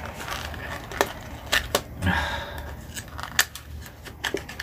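Hands handling and opening a small cardboard box: a series of sharp clicks and crinkles, with a short rustling tear about two seconds in.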